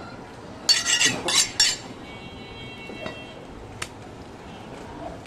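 Butcher's cleaver blade clinking and scraping in four quick metallic strokes about a second in, bright and ringing, followed by a single sharp tick.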